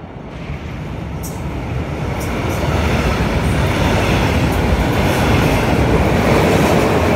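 Regional train of red double-deck coaches, pushed by an electric locomotive at the rear, passing close by on a steel truss railway bridge. The wheel-on-rail noise grows louder over the first three seconds, with a few sharp clicks in between, then holds loud and steady until it cuts off abruptly at the end.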